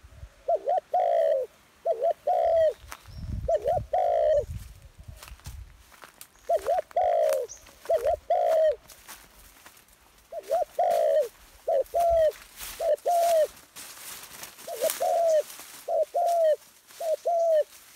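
A dove cooing over and over: short phrases of two or three coos, a quick pair then a longer, falling note, repeated about every second and a half with short breaks.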